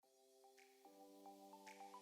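Soft background music fading in from silence: held synthesized chords that change every half second or so, with bell-like pings over them.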